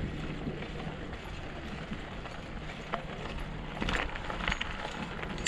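Steady rumbling noise of bicycles rolling over a dirt trail, with wind on the microphone and a few light clicks and rattles about three and four seconds in.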